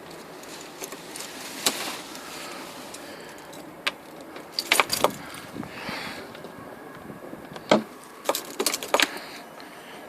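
A bunch of keys jangling and clicking in short clusters, loudest around the middle and again near the end.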